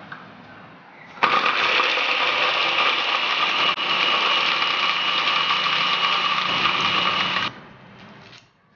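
A small electric motor runs at a steady speed for about six seconds, switching on abruptly about a second in and cutting off near the end.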